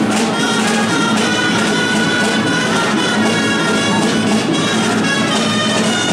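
Loud traditional Catalan street-band music on reed wind instruments, a nasal melody over a steady low held tone, played for the giants' dance.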